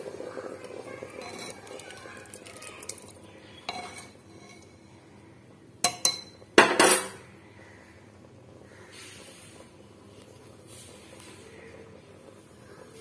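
Metal spoon stirring and scraping rajma gravy in a metal pan, then several sharp clinks of the spoon against the pan about halfway through, the last and loudest ringing briefly.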